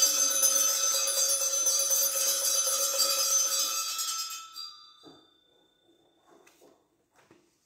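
Altar bells (sanctus bells) shaken at the elevation of the chalice after the consecration: a bright, continuous jingling ring that fades out about four and a half seconds in, followed by a few faint knocks.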